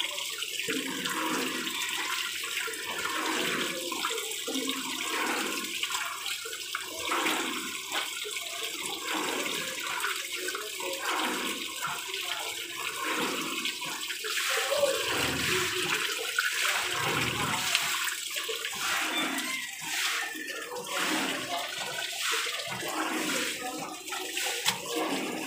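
Water gushing from a jack pump's discharge pipe, splashing over a hand held in the stream and onto a concrete floor.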